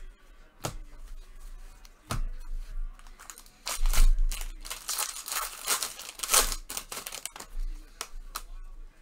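Foil trading-card pack being torn open and its wrapper crinkled, a crackly tearing stretch through the middle, with a few sharp clicks before and after.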